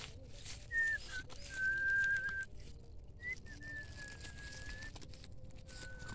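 Someone whistling a few long, held notes, each about a second long with a short slide into it, the later ones softer.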